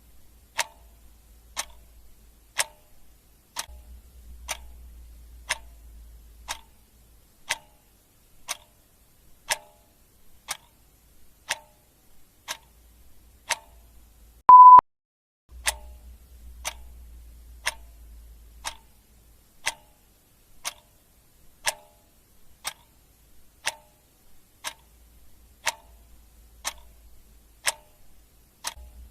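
Clock ticking steadily, one tick a second. About halfway through, a single short high beep sounds, louder than the ticks.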